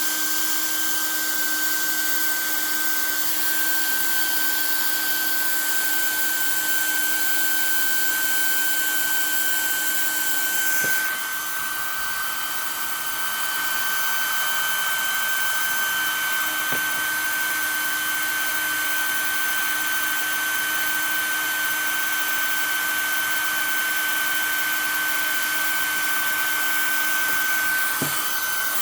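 Hair dryer running on high: an even rush of air over a steady whine, heating a vintage sewing machine's needle bar to free it where it has stuck from long disuse.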